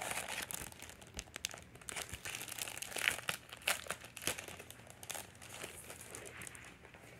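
Packaging crinkling and rustling as a wrapped pack of craft paper is opened by hand: irregular crackles, busiest in the first few seconds and thinning out towards the end.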